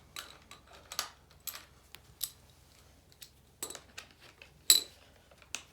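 Scattered light metallic clicks and clinks of hand tools and bolts while a dirt bike's fork guard is unbolted, the sharpest clink a little under five seconds in.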